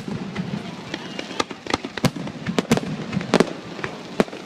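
Fireworks display going off: a string of sharp bangs and pops at irregular intervals, about eight in a few seconds.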